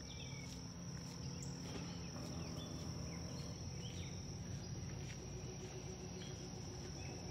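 Faint, steady, high-pitched insect trill, with a few short faint chirps now and then over a quiet outdoor background.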